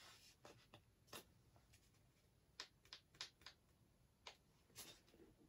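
Near silence, broken by about eight faint, scattered clicks and taps from small objects being handled.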